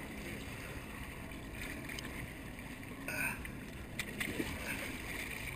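Water rushing and sloshing along a slowly moving boat's hull and a blue marlin's body held alongside by its bill, the boat run gently forward to push water over the fish's gills and revive it. A short louder sound comes about three seconds in, with a few sharp clicks soon after.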